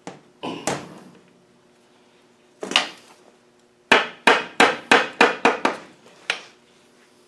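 Hammer blows tapping the intermediate gear shaft through an LT230 transfer case to drive the tight shaft home: a few lighter knocks at first, a single blow, then a quick run of about eight blows, about four a second, and one last blow.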